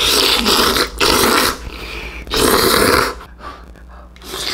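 A person slurping thick noodles from a bowl in loud, long noisy pulls: three slurps in the first three seconds, then another starting near the end.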